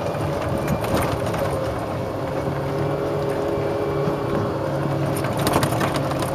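1993 Club Car DS golf cart driving along a paved path, its drive running at a steady, unchanging pitch. Rattles and clicks from the cart's body and windshield frame come and go over the ride, with a burst of them about five seconds in.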